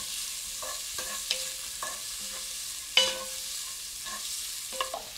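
Sliced onions sizzling steadily in olive oil in a cast iron pot as they soften, stirred with a wooden spoon that scrapes and knocks against the pan several times, most sharply about three seconds in.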